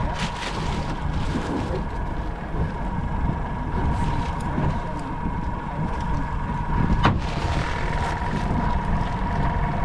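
Boat's outboard motor running steadily with a constant whine, under wind buffeting the microphone, and a single sharp click about seven seconds in.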